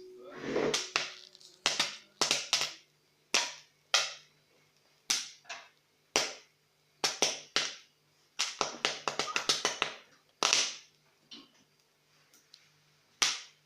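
Popcorn kernels popping in oil in a heavy lidded pot on high heat: irregular sharp pops, several in quick succession a little past the middle.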